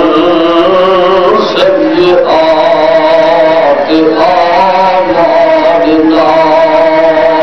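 A man's voice chanting a devotional melody in long, held notes, with short breaks between phrases.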